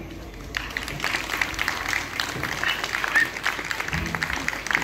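Audience applauding, breaking out suddenly about half a second in as a song finishes, a dense patter of many hands clapping.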